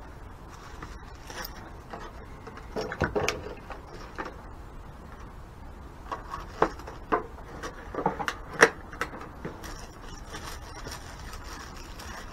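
Scattered clicks and knocks of small plastic gear being handled and set down, with a cluster of sharper knocks in the middle.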